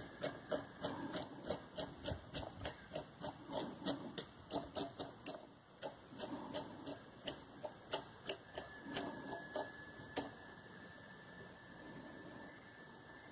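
A homemade velcro brush (velcro wrapped around a pen) stroked quickly and repeatedly over a fly's dubbed body, a rhythmic run of short scratchy strokes several times a second that teases out the dubbing fibres. The strokes stop about ten seconds in, leaving a faint steady hum.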